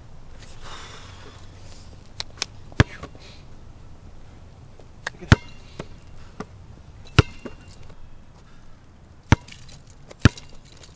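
Basketball being dribbled, passed and caught on a concrete outdoor court: a string of sharp, irregular smacks.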